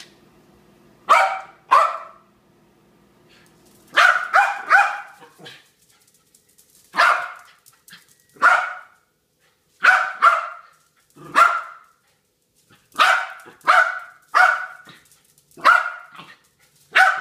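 Jack Russell terrier barking excitedly at a laser pointer dot. The barks are loud and sharp, about sixteen of them, starting about a second in, some single and some in quick runs of two or three.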